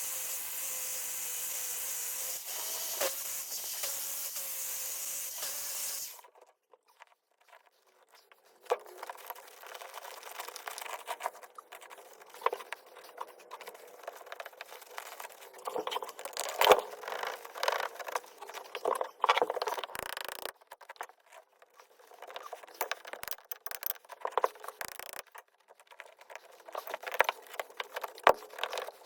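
A power drill runs steadily with one even tone for about six seconds, then stops. After a short pause come irregular scraping, rubbing and tapping sounds with scattered small knocks.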